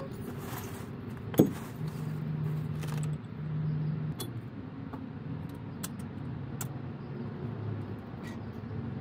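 Small metal parts clicking and clinking as they are handled, with one sharp click about a second and a half in, over a low hum that comes and goes.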